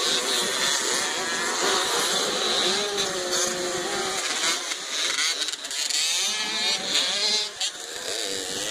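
Several small dirt bike engines revving and accelerating together, their pitches rising and falling over one another, as a row of youth riders pulls away from the start.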